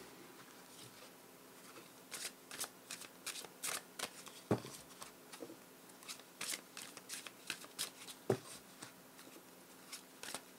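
Tarot cards being shuffled and handled: a string of quick, irregular flicks and snaps starting about two seconds in, with two louder taps along the way.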